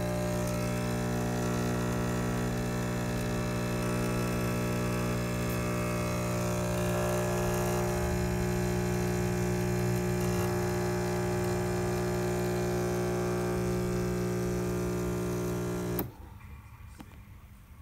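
The Nespresso Lattissima Pro's pump running with a steady, even hum, cutting off abruptly near the end.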